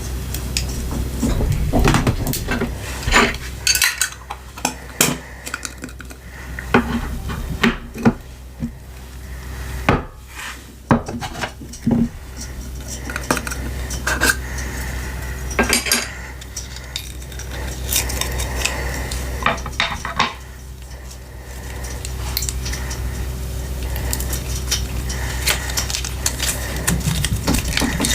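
Glitter glue slime being stirred with a utensil in a bowl: sticky scraping and sharp clicks of the utensil against the bowl, densest in the first half, turning into a steadier, even mixing sound near the end.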